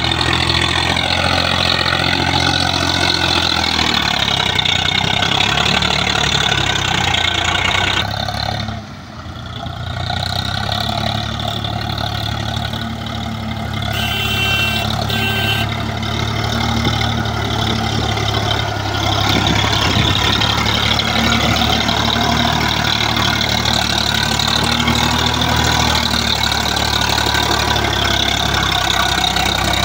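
Swaraj 744 FE tractor's three-cylinder diesel engine running steadily as the tractor drives through deep paddy-field mud, with a brief drop in level about nine seconds in.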